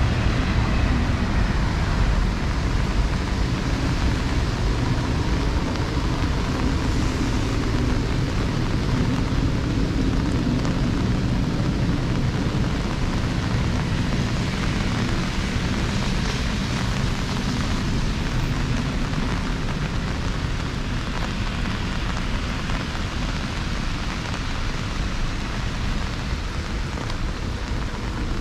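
Heavy rain on a wet city street with traffic: a constant hiss of rain over a deep rumble of vehicles that slowly eases through the stretch.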